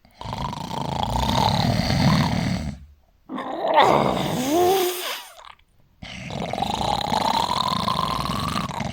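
A person snoring heavily: three long, rasping snores with short pauses between them, the middle one with a whistling tone that slides down and back up.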